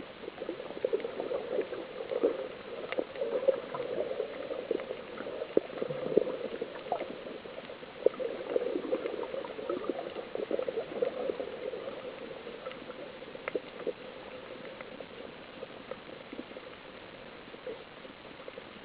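Water bubbling and gurgling in a dense, unbroken stream, with scattered small clicks. It thins out and grows quieter about two-thirds of the way through.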